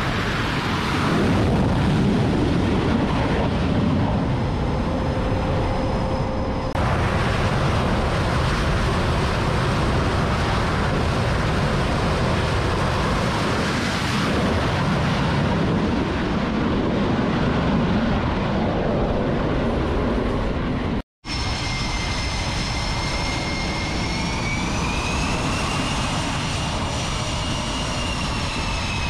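F/A-18-family jets' turbofan engines running on the flight deck, a steady heavy jet roar across several shots. After a brief dropout about two-thirds in, a high turbine whine comes in and slowly rises and then falls in pitch.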